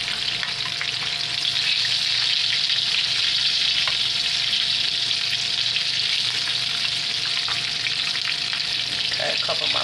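Breaded chicken strips frying in a skillet of hot oil: a steady, loud sizzle.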